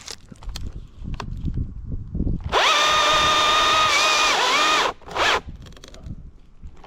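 Husqvarna two-stroke chainsaw revved to full throttle about two and a half seconds in. It holds a steady high-pitched whine for about two seconds, dips briefly, then drops off, with one more short rev about a second later.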